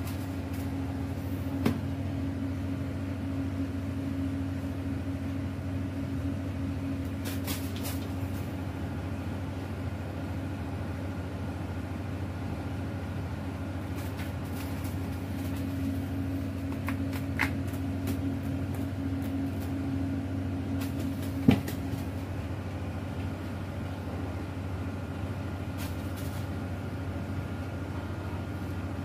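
Steady low machinery drone, a deep hum with a higher tone above it, broken by a few sharp knocks, the loudest about two-thirds of the way through.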